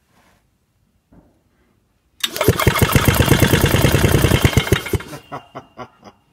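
Columbia Parcar golf cart's two-stroke engine being cranked over by its starter, with the spark plug out and grounded for a spark test: a fast even run of pulses starting about two seconds in, thinning to a few separate pulses near the end.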